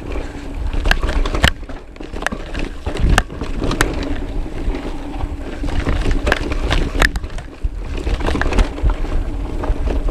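Mountain bike being ridden down a rough dirt trail: a steady low rumble of wind and tyres with frequent sharp rattles and knocks from the bike over bumps.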